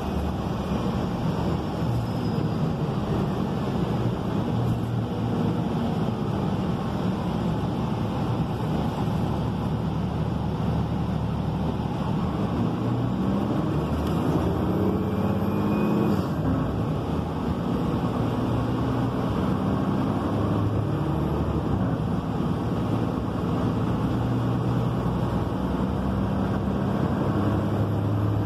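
Inside a Gillig Low Floor trolley-replica transit bus under way: its Cummins ISL9 diesel and Voith automatic transmission run steadily under road and tyre noise. The engine note climbs in pitch a little before halfway through.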